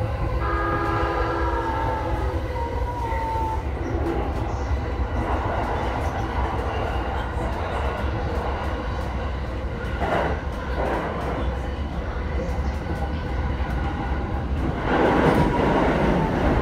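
Inside a moving Keihin-Tohoku Line electric commuter train (JR E233 series): steady low rumble of wheels on rail with scattered clicks over the rail joints. For the first few seconds a whine of several tones glides in pitch, and near the end the rumble swells louder for a couple of seconds.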